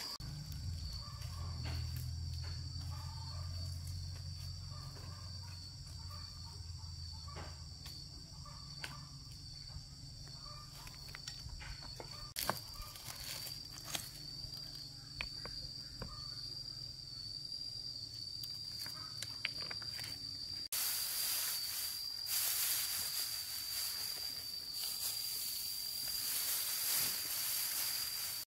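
An insect's steady, high-pitched drone, one unbroken tone, with scattered light clicks and knocks. About 21 seconds in, a louder hiss comes in under it.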